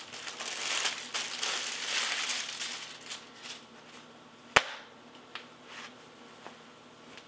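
Crinkling and rustling of packaging as a T-shirt is unwrapped and handled, fading after about three seconds, then a single sharp snap about four and a half seconds in and a few faint ticks.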